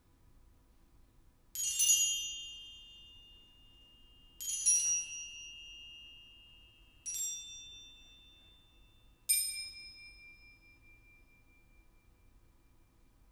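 Four single struck notes of high, bell-like percussion, each ringing with several high overtones and fading away over a couple of seconds, spaced about two to three seconds apart in a slow, sparse passage of contemporary ensemble music.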